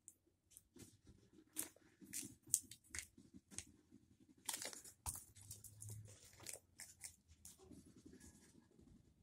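Foil candy wrapper being crinkled and picked open by hand to get a chocolate piece out: faint, irregular crackles and small tears throughout.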